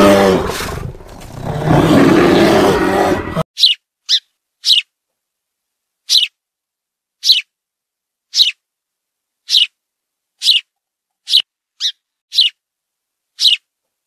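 Brown bear growling, a deep loud voice that cuts off suddenly about three and a half seconds in. Then a small songbird gives single short, high chirps, about one a second, with silence between them.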